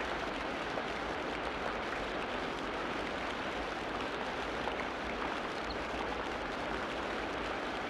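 Ocean surf breaking and washing up a beach, a steady rush of water.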